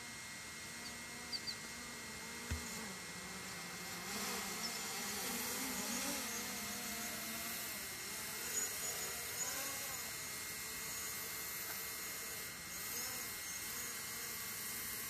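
Buzzing that wavers up and down in pitch over a steady hum, with a few short clicks in the first few seconds.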